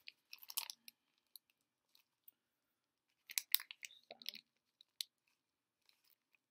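Kvikk Lunsj chocolate bar wrapper being worked open by hand: sparse crackles and rustles, with a louder cluster of crinkling about three and a half seconds in.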